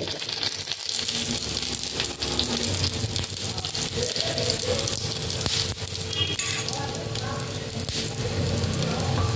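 Egg-and-masala-coated bread slices frying in butter on a nonstick dosa griddle, with a steady sizzle throughout.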